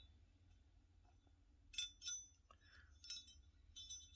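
Faint, light metallic clicks and clinks of a pistol slide, brass cartridge case and extractor being handled, a couple of small taps about two seconds in and a few more about three to four seconds in.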